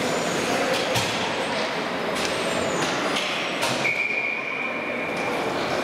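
Steady ice-rink arena noise, with hockey sticks and skates knocking on the ice several times in the first few seconds, and a steady high tone that holds for about a second and a half from about four seconds in.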